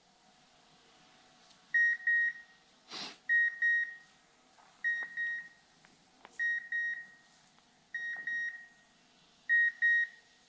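Beeper collar on a pointing dog giving its point signal: short high-pitched double beeps repeating about every second and a half, the sign that the dog is standing on point. A single brief rush of noise cuts in about three seconds in.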